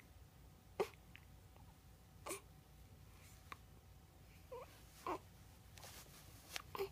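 Hiccups: short, sudden 'hic' catches of the voice, four or five of them, a second or two apart, the first the loudest.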